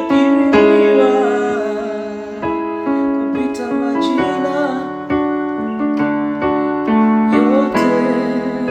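Electric piano or keyboard played slowly, sustained chords changing about once a second, with a wavering melody line above them.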